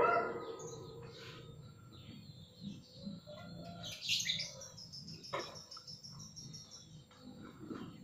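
Small birds chirping in short high calls, with a fast, evenly beaded high trill about four seconds in. A single sharp tap sounds a little after five seconds.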